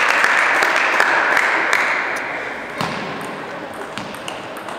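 Sharp, scattered clicks of a plastic table tennis ball striking the table and bats, over a hall-wide murmur of spectators that dies down after about two seconds.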